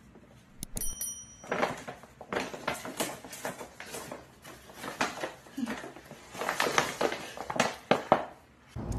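Stiff paper shopping bag rustling and crinkling in irregular bursts as it is handled, fitted over a small dog and lifted by its handles.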